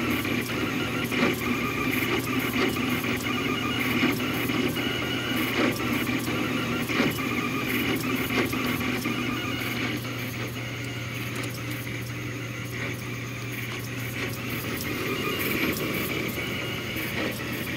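Delta 3D printer printing: stepper motors whir and chirp in shifting pitches as the carriages slide up and down their rods on PLA-printed bushings, with small ticks and a steady fan hum underneath.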